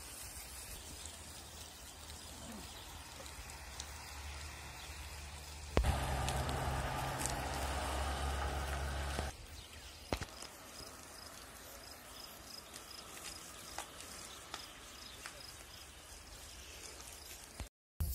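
Faint outdoor ambience. Between about six and nine seconds in it turns into a louder, steady low noise, then falls back to the faint background.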